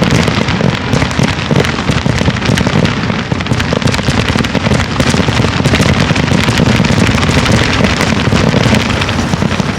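Fireworks finale: a dense, continuous barrage of shells bursting and crackling one on top of another, with no pause between the bangs.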